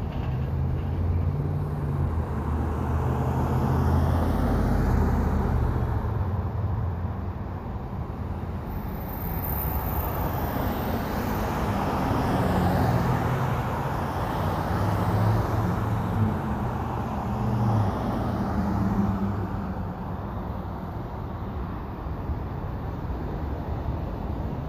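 Road traffic: a steady rush of tyres and engines with a low engine hum, swelling and fading as several vehicles pass.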